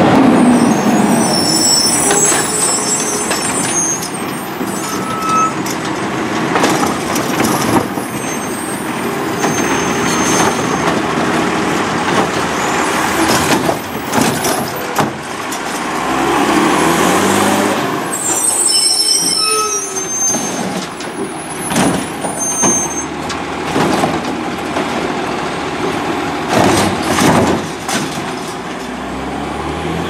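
Heil Python automated side-loader garbage truck working a stop: its diesel engine runs and revs while the hydraulic arm grabs, lifts and dumps a recycling cart. Repeated sharp clanks and bangs, short high squeaks, and air brake hisses.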